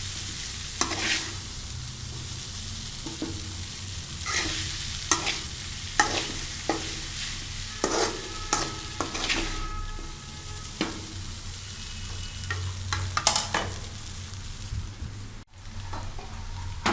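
Noodles frying in a pan, a steady sizzle, with a spoon knocking and scraping against the pan over and over as they are stirred. The sound breaks off for a moment near the end.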